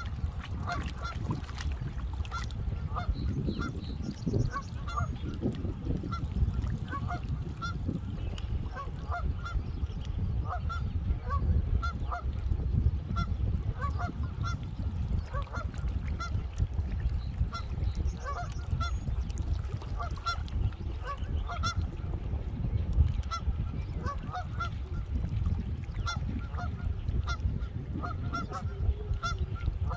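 Geese honking again and again, short calls coming every second or so, over a steady low rumble.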